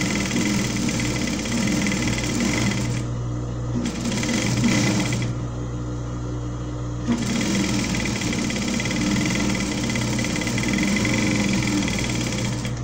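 Singer industrial sewing machine running, stitching fabric into ruffles with a gathering presser foot. It runs steadily with two short pauses, about three and five seconds in.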